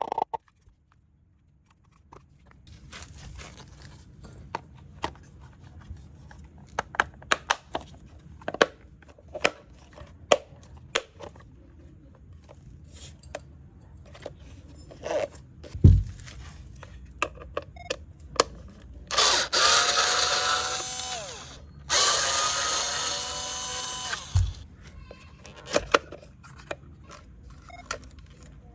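Cordless electric screwdriver running in two bursts of about two to three seconds each, a whining motor, with scattered clicks and knocks of parts and tools being handled and a single low thump before the bursts.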